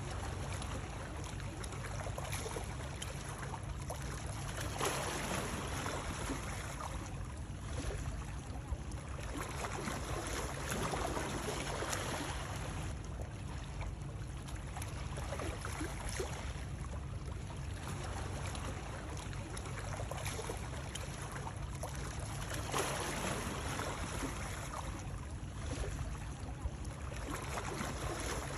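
Continuous water noise, swelling and easing every few seconds like water washing or lapping, played as soothing sleep sound for babies.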